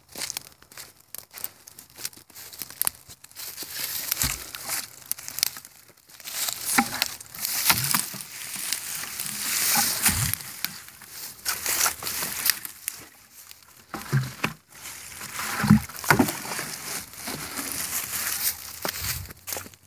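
Irregular crinkling and rustling handling noise with scattered clicks and a few dull thumps: the recording phone rubbing and knocking as it is carried.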